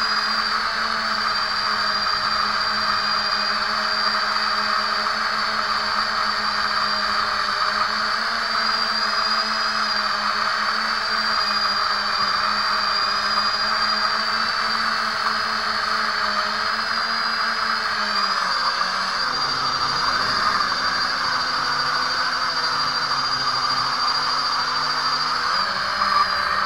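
Quadcopter's brushless motors and propellers whining steadily, heard close up from a camera on the frame. About two-thirds of the way through the pitch drops and wavers as the throttle eases, then rises again near the end.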